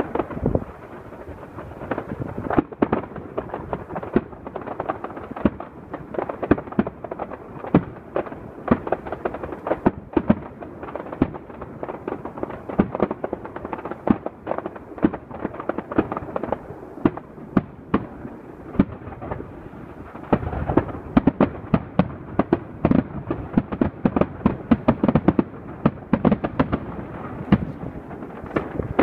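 Aerial fireworks bursting: a rapid, continuous run of bangs and crackles that grows denser and louder about twenty seconds in.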